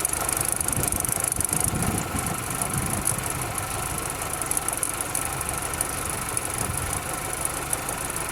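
2010 Chevrolet Equinox engine idling steadily, with a steady high hiss over it. The crankcase has just been topped up after running bone dry, and the noise it was making has nearly died away.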